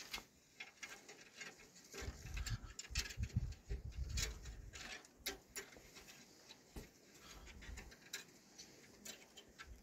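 Faint, irregular patter of small clicks and scratches as hands rub and pick at a rough, crumbly rock face, loosening grit. A low rumble comes in about two seconds in and fades by five seconds.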